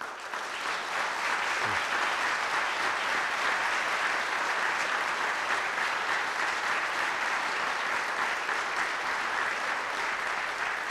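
Audience in a large legislative chamber applauding, starting abruptly and holding steady throughout, tapering off slightly near the end.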